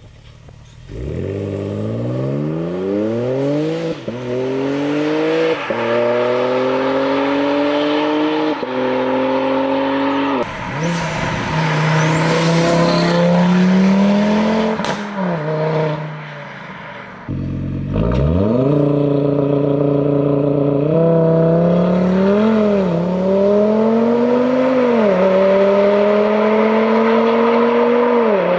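Tuned performance cars with aftermarket sport exhausts accelerating hard, the engine note climbing and dropping back at each upshift. A BMW M4 convertible pulls away about a second in and changes gear three times. After a steadier, slowly rising stretch, a second car accelerates hard through the gears again over the last ten seconds.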